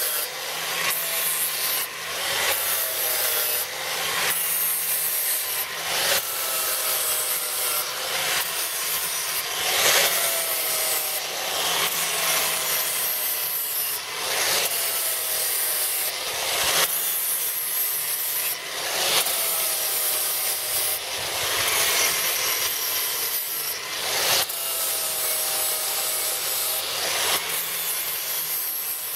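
Angle grinder with an abrasive disc sharpening the steel knife sections of a sickle-bar mower's cutter bar, one tooth at a time. The grinding hiss is broken into short passes about every one to two seconds, and the motor's pitch sags on each pass as the disc bears on a section.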